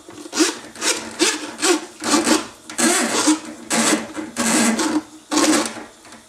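Ridgid hand-cranked drum auger being wound in, its steel cable scraping and rattling through the tub drain in a run of about nine uneven strokes as the last of the cable is pulled back out of the cleared drain.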